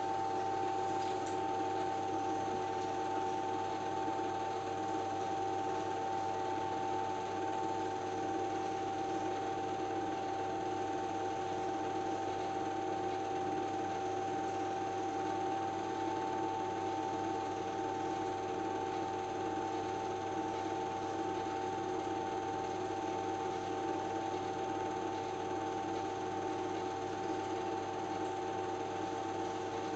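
Home-movie film projector running steadily: an even mechanical whir with a constant high whine and a low hum.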